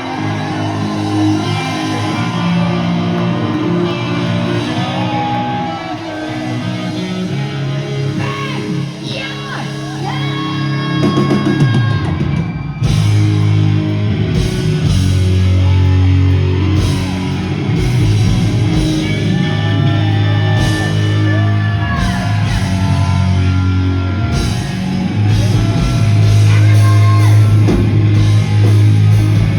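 Hard rock band playing live: electric guitar and bass chords under a singer with shouted lines. The drums come in with a steady beat about twelve seconds in.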